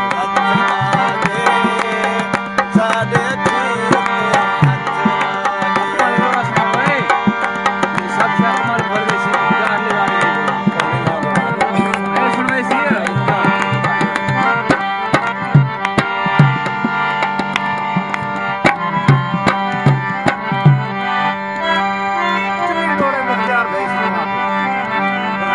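Harmonium playing sustained chords and melody, with a hand drum beating a steady, busy rhythm: an instrumental passage of Saraiki folk music.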